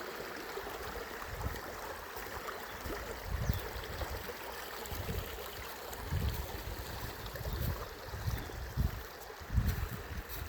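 River water flowing and gurgling over stones and rocks, with a steady rush and uneven low rumbles that come more often and louder near the end.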